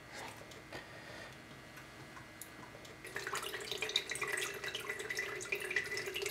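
Water poured from a plastic jug through a coffee filter into a plastic container, running and splashing steadily from about three seconds in, after a few faint clicks of handling.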